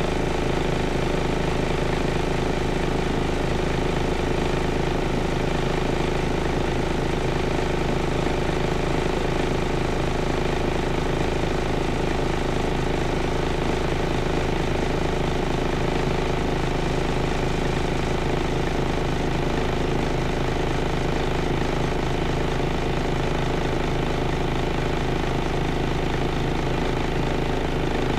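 The five-cylinder engine of a Scania L94UB city bus, idling steadily while the bus stands at a light, heard from inside the passenger cabin.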